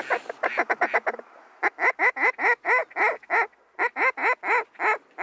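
Mallard duck call blown by a hunter. A fast chattering run of short clucks lasts about a second, then after a brief pause comes a steady series of about fifteen loud quacks, roughly four a second. It is calling to circling mallards to bring them in.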